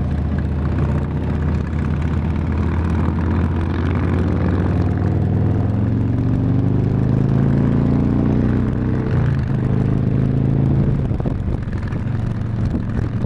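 Harley-Davidson touring motorcycle's V-twin engine pulling hard up through a gear, its pitch rising steadily for several seconds, then dropping at a shift about nine seconds in and running on steadier at highway speed.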